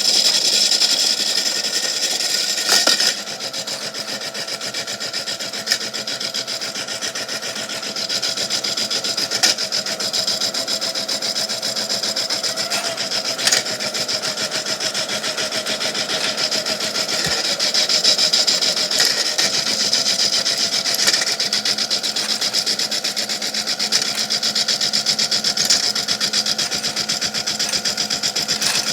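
Toy washing machine's small motor running, with rocks and shells scraping and rattling in its drum: a steady, fast rasping churn broken by a few sharper clacks.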